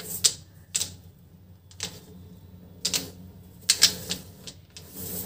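Plastic brush-pen markers clicking and knocking together as a hand picks them up and sets them down on paper: about eight to ten sharp clicks at irregular intervals.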